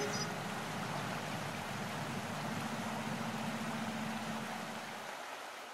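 Steady rushing noise with a faint low hum partway through, fading out near the end.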